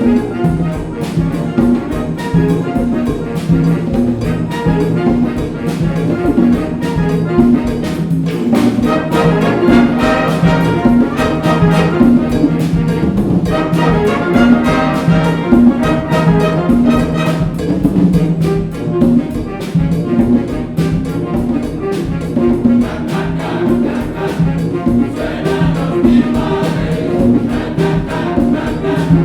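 Concert band playing a Latin, Cuban-style piece: brass with trumpets over a steady percussion rhythm.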